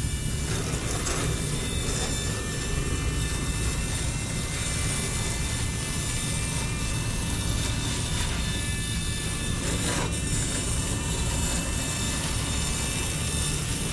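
Small electric motor and gears of a mini RC walking tractor running steadily as it drives across sand, a continuous mechanical drone.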